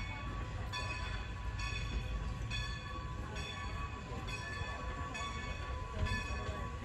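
Steam locomotive's bell ringing steadily, a stroke about every second, over the low rumble of the train.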